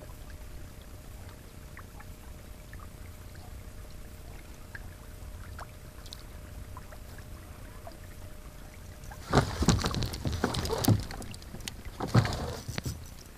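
Small boat on the lake: a low steady rumble of water and hull with a faint steady hum. About nine seconds in, a few seconds of loud, irregular splashing and knocking.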